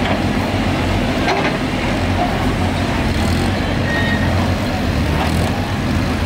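Small site dumper's engine running steadily at a low, even pitch as the dumper is driven slowly along.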